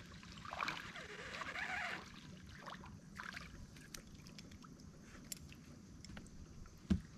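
Faint clicks and handling noise from a fishing rod and reel as a small crappie is reeled in and lifted from the water, with a single thump near the end.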